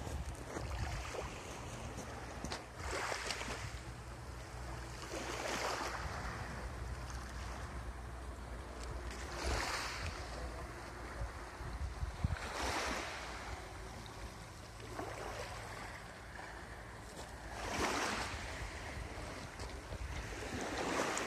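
Small sea waves washing onto a sandy beach, one swelling rush every three to five seconds, with wind rumbling on the microphone.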